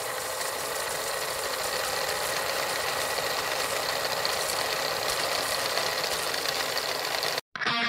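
Old film projector running: a steady mechanical clatter with crackle and hiss. It cuts off suddenly near the end, and guitar music starts.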